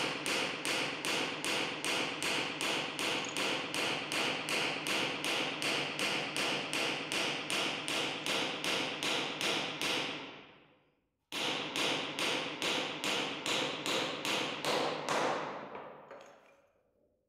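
Rapid, evenly paced hammer blows, about three a second, driving a square-ish wooden dowel blank down through a 10 mm hole in a mild-steel plate, the hole shaving it round to final size. The tapping fades away after about ten seconds, breaks off briefly, starts again abruptly and fades out near the end.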